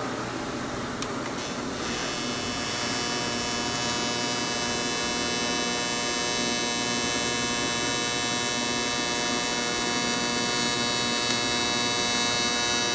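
AC TIG welding arc on cast aluminum: the arc strikes a second or two in, then runs as a steady electric buzz.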